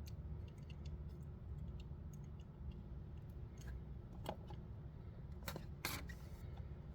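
Packaging of a die-cast toy car being handled and opened: scattered small clicks and ticks, with two louder sharp snaps near the end, over a steady low hum.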